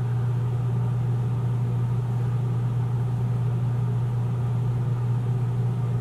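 Steady low background hum at one constant pitch, with a faint hiss above it.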